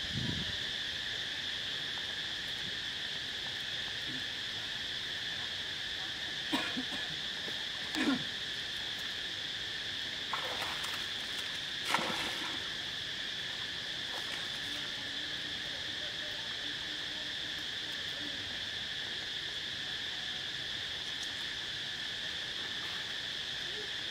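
Steady, high insect drone, with several splashes of monkeys jumping into pond water; the loudest splash comes about twelve seconds in.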